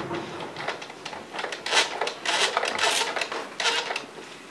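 A click of the toy fire truck's roof push button, then the battery-powered sound module playing electronic fire-truck sound effects in irregular bursts through its small built-in speaker.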